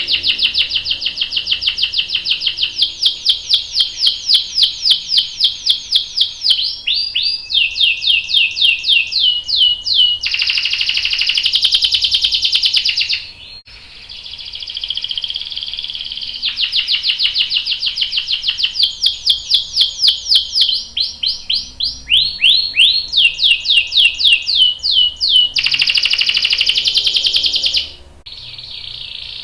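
Domestic canary singing long rolling trills: fast, evenly repeated notes held for a few seconds each, switching from one trill type to another, with a short break about halfway through and another near the end.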